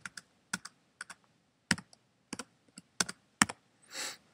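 Keystrokes on a computer keyboard: about a dozen separate, irregularly spaced key taps while editing text to join two paragraphs into one. A short soft hiss comes near the end.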